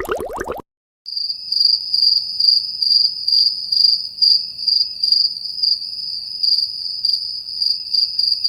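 Crickets chirping: a steady high trill with regular swells, starting about a second in. Before it, a short bubbling sound cuts off just after the start.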